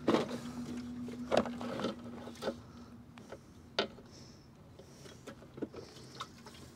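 Scattered light knocks and clicks from handling the pressure washer while working on it, a few louder ones near the start and around the middle, over a faint steady hum that stops about halfway through.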